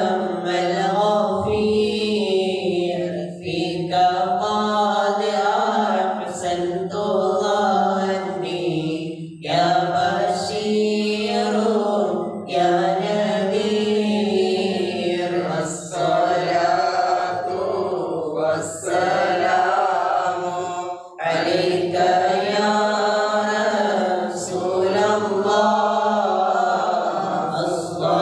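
Men's voices chanting a mawlid, devotional Arabic verse in praise of the Prophet, unaccompanied and amplified through a microphone, in long melodic phrases broken by short breaths.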